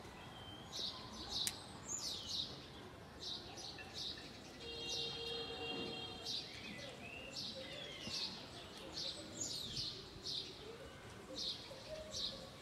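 Small bird chirping repeatedly outdoors, short high chirps coming about once a second, over steady background noise.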